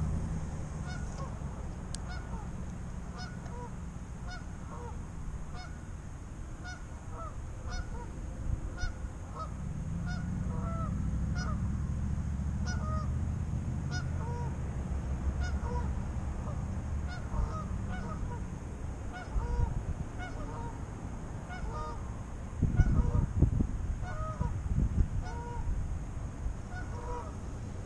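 A flock of geese honking, many short calls a few times a second throughout, over a low wind rumble on the microphone that gusts louder near the end.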